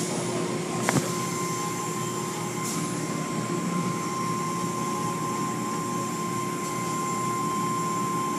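Automatic car wash heard from inside the car: water jets and cloth brushes spraying and scrubbing over the windshield and body. A steady high whine starts about a second in, just after a couple of knocks.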